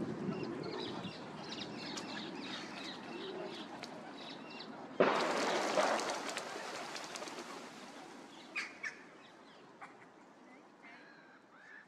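Mallards making low calls, with higher chirping over them. About five seconds in, a sudden loud flurry of wing-flapping and splashing on the water, which then fades away with a few sharp clicks.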